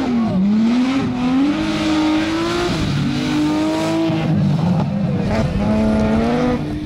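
Rally BMW engine at full throttle, its pitch climbing and then dropping sharply several times as the driver changes gear or lifts off.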